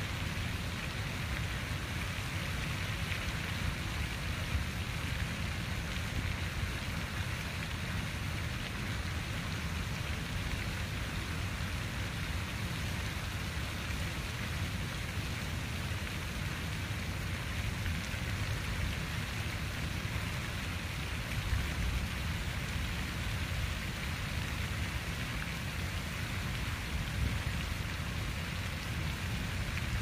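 Water fountain splashing: a steady, even rush of falling water that does not change.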